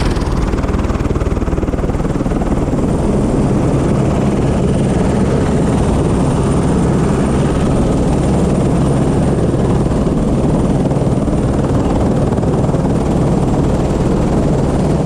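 Helicopter running on the ground with its main rotor turning, heard up close as a steady, loud noise.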